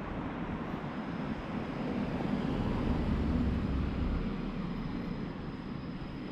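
A car moving slowly along a paved street, a low engine-and-tyre rumble that swells about halfway through, over steady outdoor street noise.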